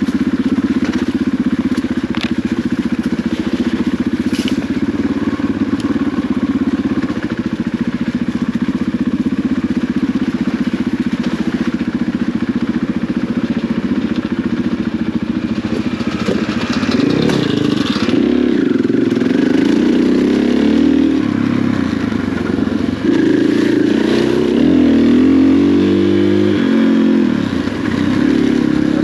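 KTM 500 EXC dirt bike's single-cylinder four-stroke engine running at low, steady revs, then from about halfway revving up and down repeatedly as the bike picks up speed. A few sharp knocks come through along the way.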